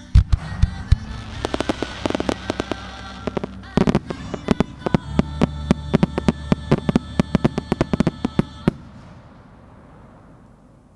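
Fireworks finale volley: aerial shells bursting in rapid succession, a few deep booms at the start followed by a dense run of sharp bangs and crackling. About nine seconds in the barrage stops and the echoes fade away.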